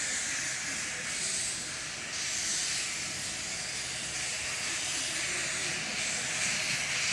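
Small steam tank locomotive hissing steadily as it lets off steam, the hiss swelling a little now and then.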